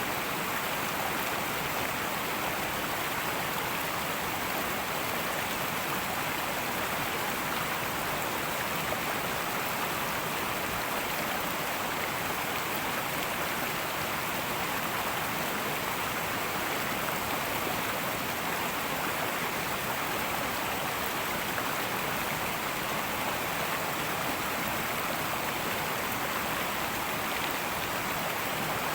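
Fast-flowing river rushing and babbling steadily.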